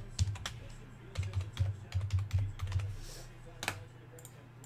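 Typing on a computer keyboard: an irregular run of key clicks with dull knocks, busiest in the first three seconds, then a single sharper click and fewer strokes.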